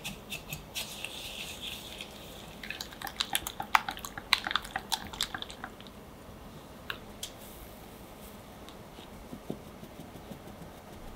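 A wire whisk beating eggs with sugar in a glass bowl: a soft swishing at first, then a quick run of taps and clicks as the wires strike the glass, thinning to a few scattered taps.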